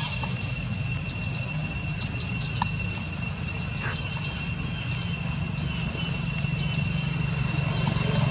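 A high, fast-pulsing insect chorus that breaks off and starts again in runs, over a low steady hum.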